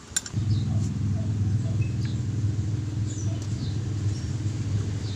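A click, then a steady low motor drone starts about half a second in and runs on evenly.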